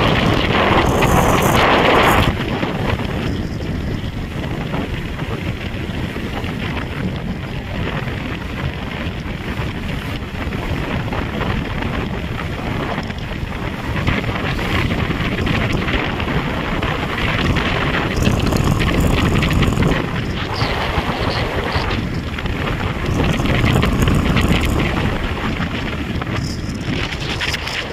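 Wind buffeting the microphone of a moving motorcycle, with the bike's engine and road noise running underneath; the rush swells louder a few times.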